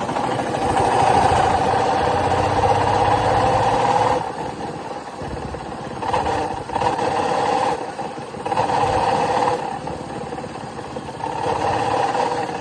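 Royal Enfield motorcycle engine revved and held for about four seconds, then blipped up several more times, dropping back to idle in between. This is the engine noise the mechanic traces to worn engine bearings, which are due to be replaced.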